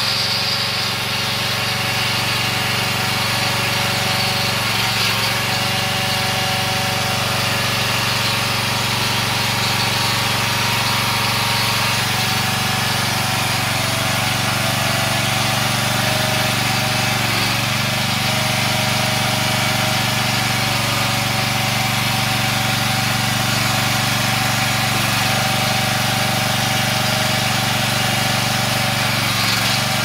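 Honda engine of a towable backhoe running steadily, powering the hydraulics as the boom and bucket are worked.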